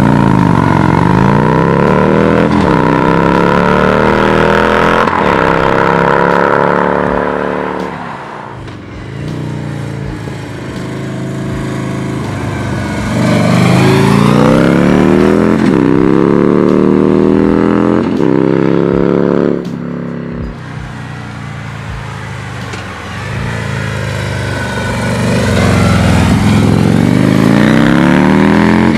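Harley-Davidson Street Glide V-twin running through Bassani DNT slip-on mufflers, accelerating hard through the gears. The exhaust note climbs in pitch and drops back at each upshift, in three separate runs with quieter stretches between them.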